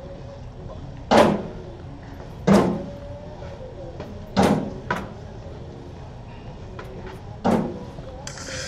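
Cornhole bags landing on wooden boards: four solid thuds a second or more apart, with a lighter knock soon after the third.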